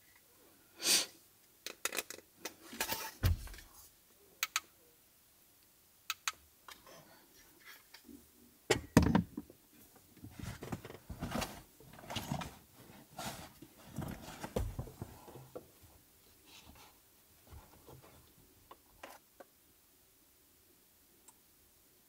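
Handling noise of camping gear: scattered light clicks and knocks, the loudest a pair of knocks about nine seconds in, then a few seconds of busy rustling, and little after that.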